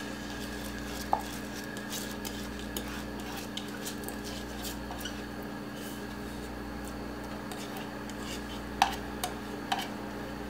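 Washed rice tipped from a plastic bowl into an aluminium pressure cooker, with light knocks and scrapes of the bowl against the cooker. One click comes about a second in and a few louder ones near the end, over a steady low hum.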